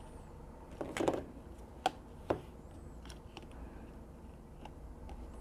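A few small, sharp clicks and a brief rustle of a circuit board and small plastic parts being handled as a car diagnostic interface is taken apart: a rustle about a second in, then two clicks about half a second apart.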